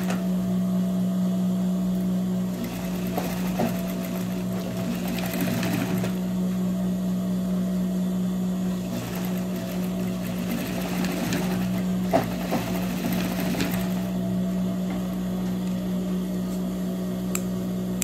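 Industrial single-needle lockstitch sewing machine (Juki DDL type) sewing a denim seam closed in stretches. Its motor hums steadily between runs.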